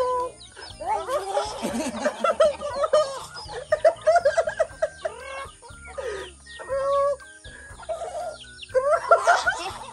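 Chickens clucking, many short calls one after another.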